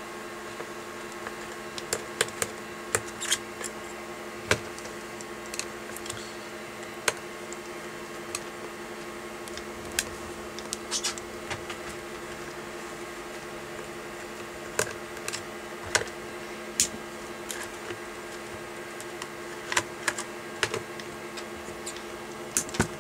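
Scattered small clicks and taps of a screwdriver turning out the case screws of a rugged handheld GPS unit, with the unit being handled, over a steady faint hum.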